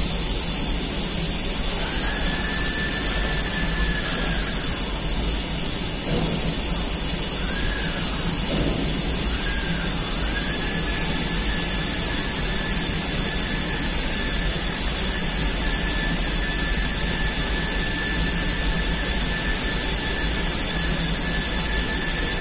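Hirung EL75LL CNC lathe running: a loud, steady high-pitched whine and hiss over a low hum. A fainter tone comes in about two seconds in, wavers twice, then holds steady from about ten seconds.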